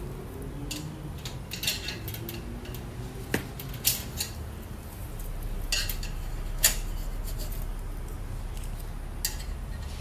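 Scattered light metal clinks and knocks from a black metal microwave shelf rack being handled, about eight sharp taps spread over a low steady hum.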